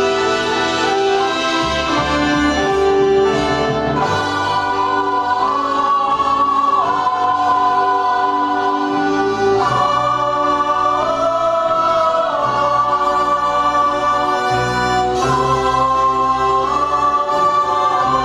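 Musical-theatre song: instrumental accompaniment playing held notes that change every second or two, with singing over it.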